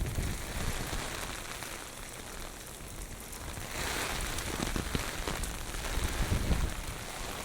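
Heavy typhoon rain pouring and splashing on the street, with gusts of strong wind rumbling against the microphone near the start and again about six seconds in; the rain hiss swells about four seconds in.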